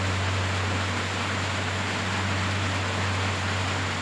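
Steady hiss with a constant low hum underneath, unchanging throughout, with no other distinct sounds.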